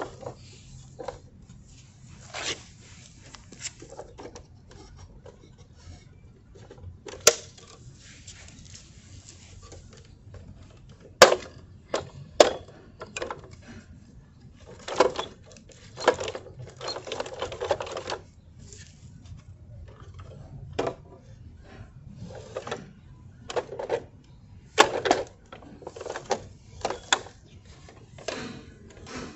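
Toy garbage trucks being handled: irregular plastic clicks, knocks and rattles, with a few sharp clacks and a longer stretch of rattling about fifteen seconds in.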